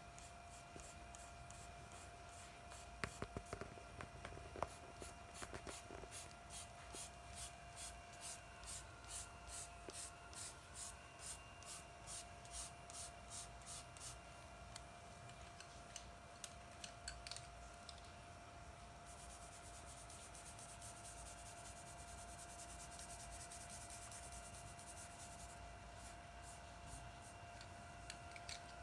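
Charcoal pencil scratching across drawing paper in short, even shading strokes, about two a second, that later give way to a steadier continuous scratching.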